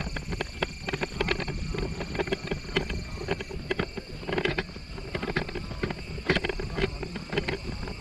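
Footsteps walking down a dry dirt trail: irregular scuffs and crunches, a few each second, over a steady low rumble on the microphone.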